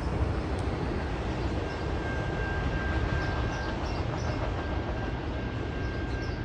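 Canadian National freight train of autorack cars rolling along the track: a steady rumble of wheels on rail. A faint, thin, steady high whine joins about two seconds in.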